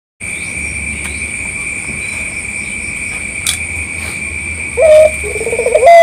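Insects drone steadily at two high pitches. About five seconds in, a caged ringneck dove (puter) starts its call: a short coo, then a rapid rolling coo that rises toward the end.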